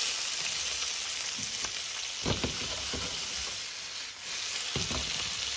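Diced vegetables sizzling in hot olive oil with garlic, ginger and chili in a stainless steel frying pan, a steady hiss as the pan is shaken over the hob. Two short knocks, about two seconds in and near the end.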